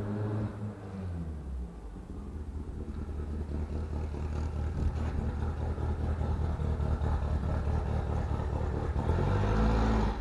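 1964 Volkswagen Beetle driving up, its engine rumble growing steadily louder as it approaches, with no scraping from the body or wheels.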